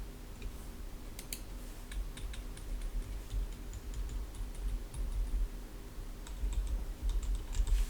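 Typing on a Corne split mechanical keyboard with lubed Boba Gum 55 g switches and PBT DSA keycaps: soft, irregular keystrokes at an uneven typing pace.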